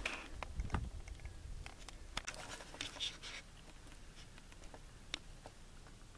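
Faint rustling with scattered small clicks and scrapes, and a short stretch of scraping about two seconds in.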